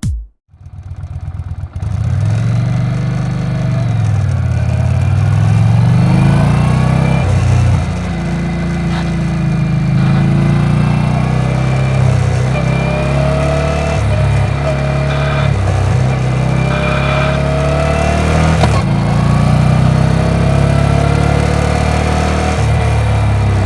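Yamaha XV950R's air-cooled 942 cc V-twin engine catching about two seconds in and then running near idle, its pitch wavering up and down with small changes in engine speed.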